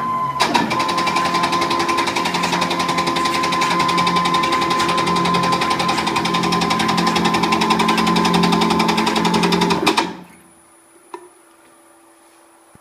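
Home-built CNC machine running, its stepper motors driving the axes with a loud, rapid mechanical buzzing and chatter over a steady whine. It starts about half a second in and stops abruptly about ten seconds in, leaving a faint hum and a single click.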